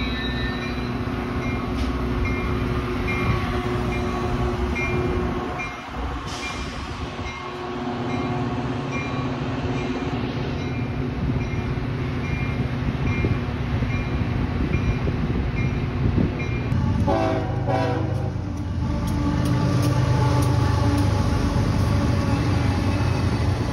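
A repeating ding, like a grade-crossing bell, sounds steadily over a low train rumble. About seventeen seconds in, a BNSF intermodal freight locomotive sounds its horn briefly, and then its diesel engines rumble loudly past at close range.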